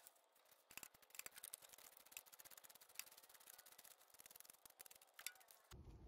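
Near silence with faint, scattered, irregular clicks; a low hum sets in near the end.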